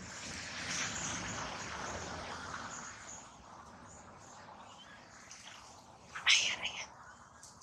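A broad rushing noise swells and fades over the first few seconds. About six seconds in, a baby macaque gives a short, sharp, high-pitched squeal in a few quick pulses.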